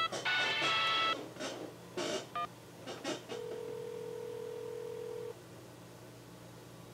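Phone keypad beeps as a number is dialed, a few short clicks, then a steady ringback tone in the earpiece for about two seconds, starting about three seconds in.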